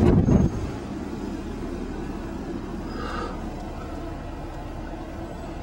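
Car driving slowly, a steady low rumble of engine and tyres heard from inside the cabin. Wind buffets the microphone loudly for the first half second, then dies away.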